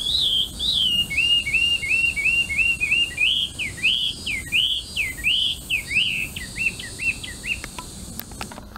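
Melodious laughingthrush (hwamei) singing: a long run of clear whistled notes, first short rising notes repeated at about four a second, then louder, longer notes that rise and fall, and finally quicker short notes that stop shortly before the end.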